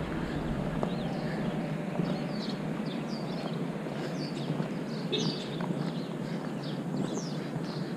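Small birds chirping, many short falling chirps scattered throughout, over steady street noise and footsteps on a sidewalk.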